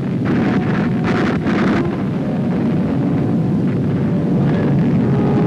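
Battle sounds on an old newsreel soundtrack: a steady low rumble of explosions and gunfire, with a cluster of sharper reports in the first two seconds.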